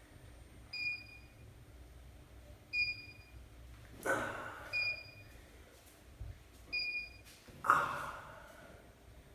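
A short high beep repeating about every two seconds, with two louder sudden sounds about four and eight seconds in, the second one the loudest.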